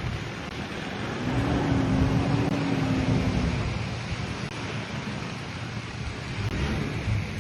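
A grass fire burning: a dense rushing, crackling noise with wind buffeting the microphone. A faint steady hum runs for about two seconds near the start.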